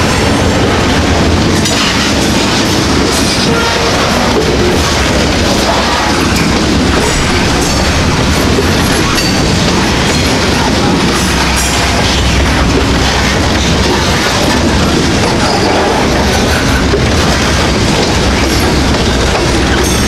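CN freight train of covered hopper cars rolling past close by: a loud, steady rumble of steel wheels on rail, with clickety-clack as the trucks pass over rail joints.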